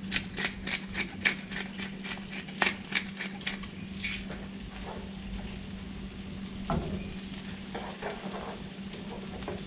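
Food sizzling in a frying pan, a steady hiss, with a quick run of sharp clicks over the first four seconds and a low steady hum underneath.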